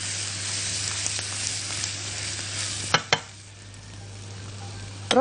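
Rice, garlic and parsley sizzling in butter in a frying pan while they are stirred and turned with silicone tongs, the rice being sautéed before the broth goes in. About three seconds in there are two sharp knocks, and the stirring stops; the sizzle then goes on more quietly.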